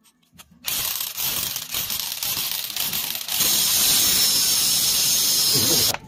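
Cordless hammer drill boring into a ceramic floor tile. It starts about half a second in with a rattle of rapid impacts, then from about three seconds in runs steadier and louder until it cuts off suddenly.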